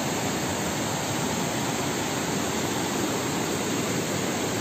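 Steady rushing of a river flowing over rocky rapids, an even hiss of water without breaks.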